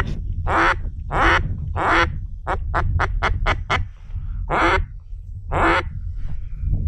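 Mallard duck call (reed call) blown to lure mallards: four long quacks, a quick run of about eight short quacks, then two more long quacks, over a steady low rumble.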